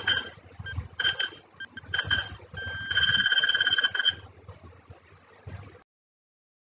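Quiz countdown-timer sound effect: a clock ticking about once a second, then an alarm ringing with a fast rattle for about a second and a half as the timer reaches zero. It fades and cuts off suddenly near the end.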